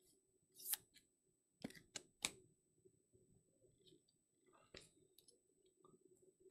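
Faint clicks and taps of trading cards and rigid plastic card holders being handled and set down on a stack: one sharp click under a second in, three more in quick succession from about a second and a half in, and another near five seconds.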